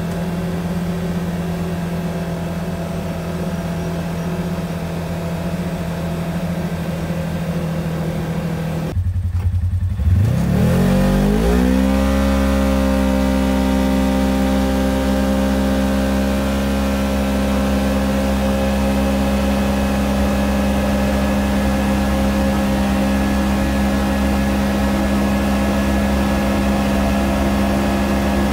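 Polaris General XP 1000's 999 cc parallel-twin engine running steadily. About nine seconds in the sound breaks, then the engine starts and its pitch climbs over about two seconds before settling into a steady idle.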